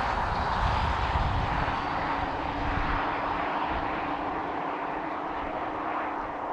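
Tyre and road noise from a 2023 Polestar 2 dual-motor electric car, dying away steadily, with a faint high electric-motor whine sinking slightly in pitch.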